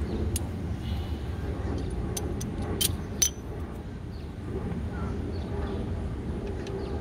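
Scattered metallic clicks and clinks from a wrench working a motorcycle's clutch adjuster lock nut. The loudest is a sharp clink with a brief ring about three seconds in. Under it runs a steady low rumble.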